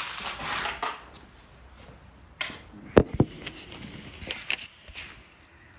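A door and footsteps on a bare wood floor in an empty room: a rustle at first, then scattered clicks and knocks, the loudest two close together about three seconds in.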